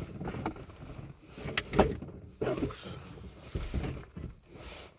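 Rustling and scattered knocks of someone moving about and handling things inside a car, with one sharp knock a little under two seconds in.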